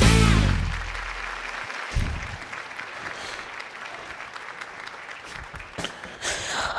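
Guitar-driven intro music ends on a held chord that dies away over the first second or two, then steady applause follows.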